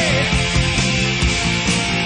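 Loud rock music with electric guitar over a steady drum beat.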